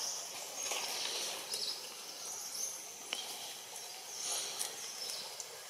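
Outdoor tree-canopy ambience: a steady high hiss of insects with scattered short bird chirps, and one sharp click about three seconds in.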